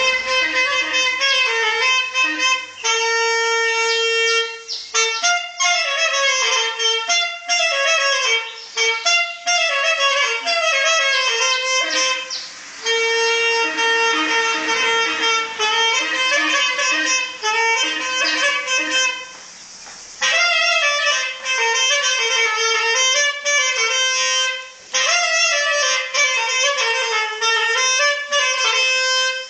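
Solo clarinet (Greek folk klarino) playing an ornamented melody: quick runs and bending notes between long held tones, with a few short pauses for breath, the longest about two-thirds of the way through.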